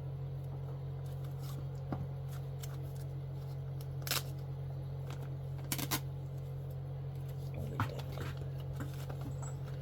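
Comic books being handled and set down: a few short rustles and taps of paper and covers over a steady low hum.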